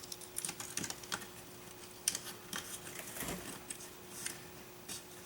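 Faint, irregular light clicks and taps of small plastic parts and wires being handled as an RC receiver is fitted into a plastic model bulldozer, over a faint steady hum.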